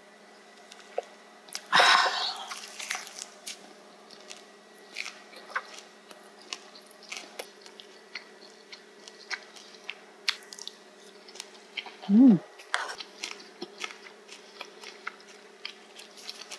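Close-up chewing of spicy pork cartilage (odolppyeo) wrapped in a perilla leaf, with many small crunchy clicks as the cartilage breaks. A loud breathy exhale comes about two seconds in, just after a shot of soju, and a short hummed sound about twelve seconds in.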